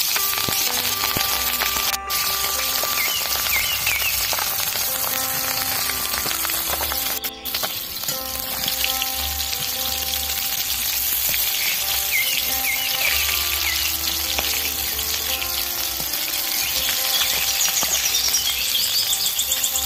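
Tangra fish frying in hot mustard oil in an aluminium kadai: a steady, dense sizzle, broken twice by very short cuts.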